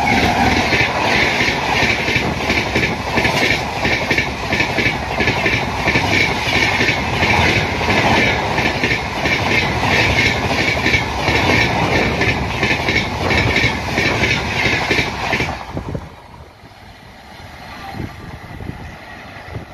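Express train of LHB coaches passing close at high speed, about 130 km/h, behind a WAP7 electric locomotive: a loud rush with a rapid, even clatter of wheels over the rail joints. It stops abruptly about 16 seconds in, leaving a much quieter open-air background.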